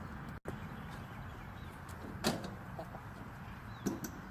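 Hen feeding at a metal treadle-style rat-proof chicken feeder: two sharp knocks of metal, a louder one about halfway through and a second near the end.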